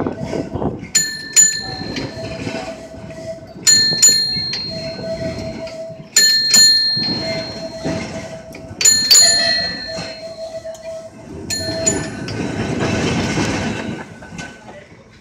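1934 English Electric Blackpool boat tram running on its rails, heard from aboard: pairs of sharp metallic clangs with a ringing tone come about every two and a half seconds, over a low rumble and an on-and-off steady whine.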